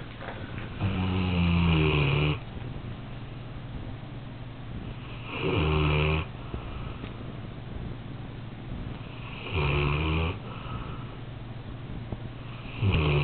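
Newfoundland dog snoring very loudly in deep sleep: four long snores about four seconds apart, the last one beginning near the end.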